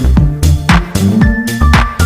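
Background electronic dance music with a steady beat of about two kick-drum strikes a second, over a bass line and held synth notes.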